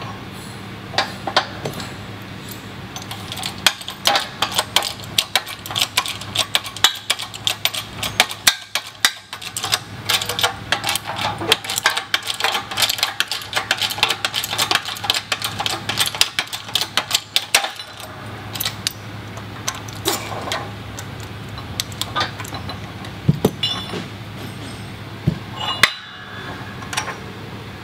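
Hydraulic bottle-jack shop press being pumped by hand to press the bearing out of a Sanden A/C compressor clutch pulley, making a long run of quick metallic clicks and clanks. Near the end there are a few louder knocks as the metal pulley and press fixture are handled. A steady low hum runs underneath.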